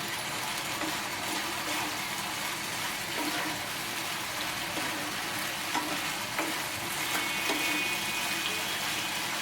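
Chili chicken with onion and capsicum in sauce sizzling steadily in a pan over a high flame, stirred with a spatula that scrapes and clicks against the pan now and then.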